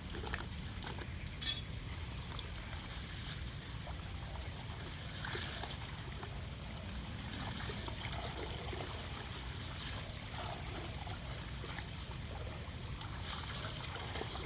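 Floodwater running and trickling as it drains away, a steady rush with scattered small splashes and clinks.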